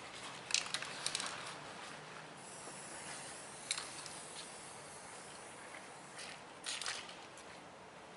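Aerosol spray-paint can hissing in short spurts as an outline is traced on a wall: a quick cluster about half a second in, single spurts later, and a slightly longer spray near the end.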